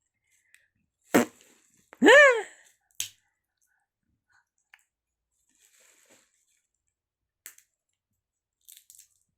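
Six-month-old baby's mouth noises: a short sharp burst, then a brief vocal squeal that rises and falls in pitch, a smack, and a few faint clicks near the end.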